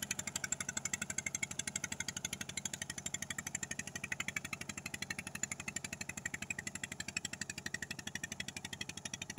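Two-wheel tiller tractor's single-cylinder diesel engine running steadily under load as it pulls its cage wheels through a flooded rice paddy, with a rapid, even chugging.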